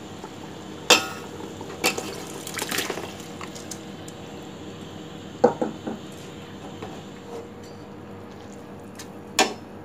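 Soaked rice poured from a steel bowl into a pot of boiling stock and stirred in with a perforated steel spoon, with a soft wet pouring sound and several sharp metal clinks against the pot.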